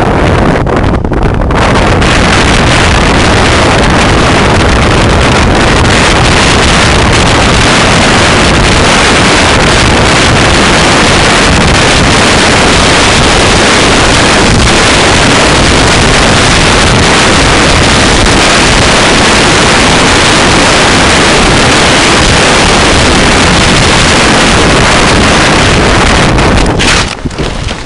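Wind buffeting a body-worn camera's microphone during a fast mountain-bike descent on snow: a loud, steady rush of noise that dips briefly near the end.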